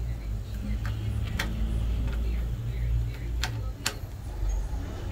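Four short, sharp clicks of hard metal and plastic printer parts being handled on the line feed motor and gear assembly of an opened Oki Pacemark 3410 impact printer, two of them close together past the middle, over a steady low hum.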